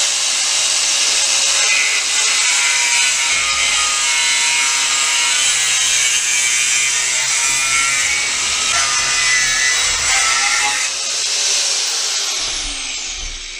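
Dnipro-M angle grinder running under load, grinding down the bottom edge of a door that was catching so that it opens freely. The steady grinding lasts most of the time, then eases off and the disc winds down near the end.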